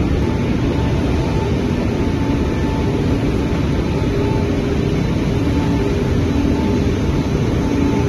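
Steady, loud machine noise of a running mesh veneer dryer, mostly low, with faint hums that come and go.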